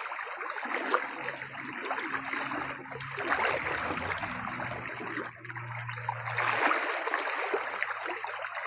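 Steady rushing, water-like noise, like a stream running, with a low steady hum underneath.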